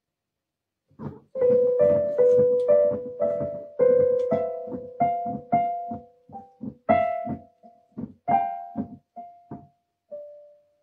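Digital keyboard with a piano sound, its keys pressed by a cat's paws: an irregular string of single notes and small clusters, with no tune, starting about a second in. One note is held under the others for several seconds, and the notes grow softer and sparser toward the end.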